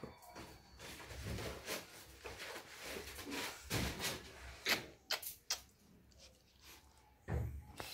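German Shepherd puppy licking and nuzzling a man's face and beard: scattered short wet licking clicks and fur rustle, going quiet near the end before a soft thump.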